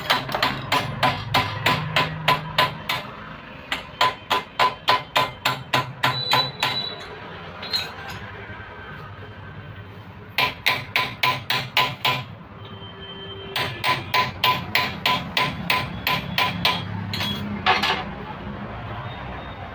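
Hammer blows on metal during a scooter shock absorber repair. The blows come in quick runs of about four a second, each with a short ringing tone, and there are pauses of a second or more between the runs.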